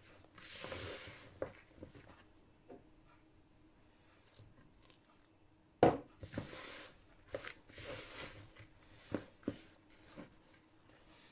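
Silicone spatula stirring flour and water into a shaggy pita dough in a clear mixing bowl: soft scraping swishes in several separate strokes, with a few sharp knocks of the spatula against the bowl, the loudest about six seconds in.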